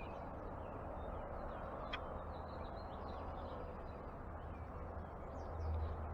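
Backyard outdoor ambience: a steady background rumble with a few faint, brief bird chirps. A short click about two seconds in, and a low rumble that swells slightly near the end.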